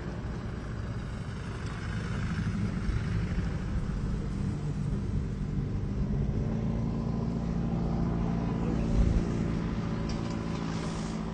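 Vehicle engines running with a steady low hum, as lorries and a van move on a snow-covered highway.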